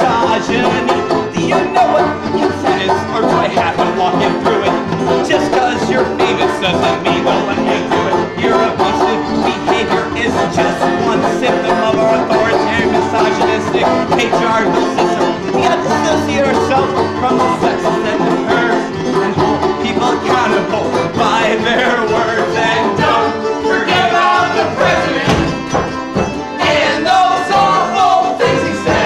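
Live acoustic string band playing a bluegrass-style song, with a strummed acoustic guitar and banjo, and a man singing.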